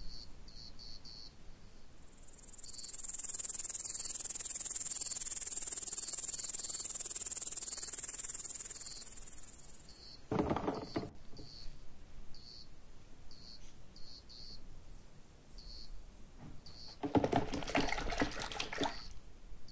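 Insect stridulation for a grasshopper: short, high chirps repeating throughout, with a loud, steady, high buzz from about two and a half to nine and a half seconds. Near the end comes a stretch of water splashing.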